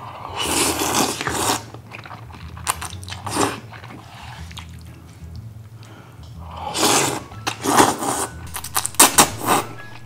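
A person slurping spicy instant noodles off chopsticks in several noisy pulls, the longest just after the start and again about seven seconds in, with chewing in between.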